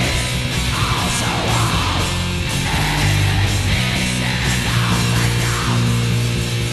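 Black metal music: distorted electric guitars in a loud, dense, unbroken wall of sound over sustained low bass notes.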